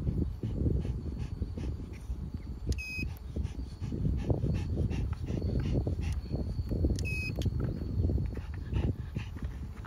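A cordless string trimmer's control panel gives a short, high electronic beep twice, about four seconds apart. Under the beeps, a dog is making low snuffling and moving noises close to the microphone.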